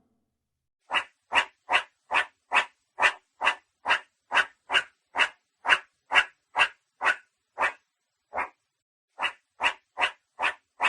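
An animal call, short and repeated at an even pace of about two and a half calls a second, with a brief break past the middle.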